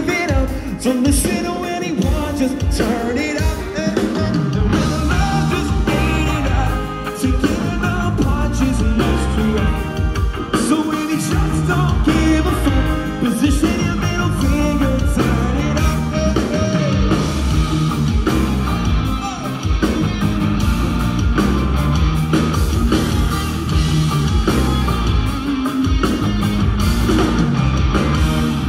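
Live rock band performing a song: lead vocals over electric guitar, keyboard and drums.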